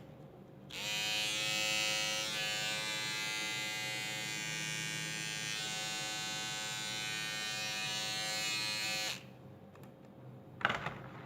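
Rechargeable 4-in-1 electric grooming trimmer switched on and running: a steady buzzing hum from its small motor that lasts about eight seconds, then stops abruptly when switched off. A few light clicks follow near the end.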